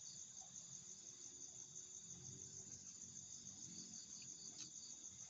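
Faint, steady chorus of forest insects: a continuous high-pitched trill, with a slightly lower pulsing chirp that comes and goes.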